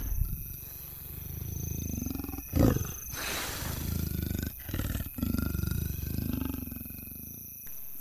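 Leopard calling: a series of low grunts, the loudest about two and a half seconds in.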